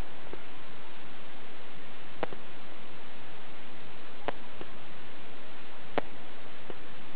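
Steady hiss with sparse, faint pops at irregular intervals, about five in seven seconds: stray fireworks still going off after a large fireworks explosion.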